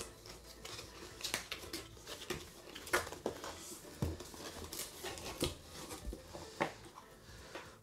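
Cardboard product box being opened by hand and its packaging handled: scattered light clicks, scrapes and rustles of cardboard and paper.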